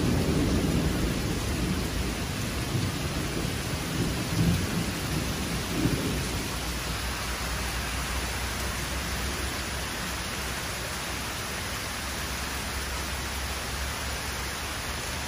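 Heavy rain pouring steadily, with a low rumble of thunder over the first several seconds that dies away.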